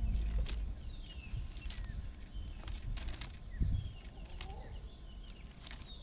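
Bushveld ambience: wild birds calling in short, falling chirps over a steady high insect drone, with a few sharp clicks scattered through.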